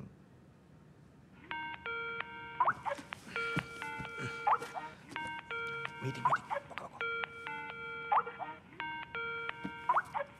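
Electronic ringtone of an incoming call on a laptop: a short stepped melody with a rising glide at the end of each phrase, starting about one and a half seconds in and repeating about every two seconds.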